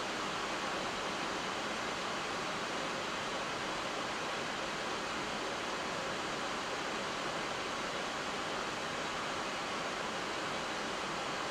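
Steady rushing air noise inside an Airbus A340-300 cockpit on final approach, even and unchanging.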